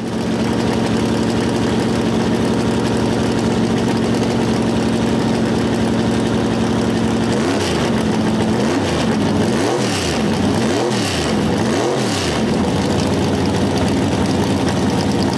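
Engine idling with a steady rumble, then revved up and let back down four or five times, about a second apart, in the second half.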